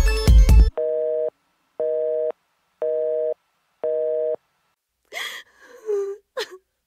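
Telephone busy signal: four short beeps about one a second, the call not getting through. They are followed by a woman's gasping, sobbing breaths.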